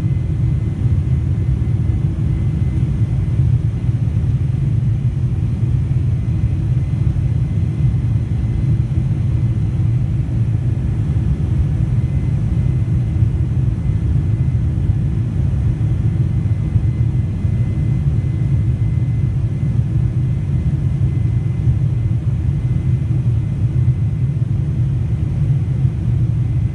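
Steady low cabin rumble of an airliner climbing after takeoff, engine and airflow noise heard from inside the cabin, with a faint steady high whine above it.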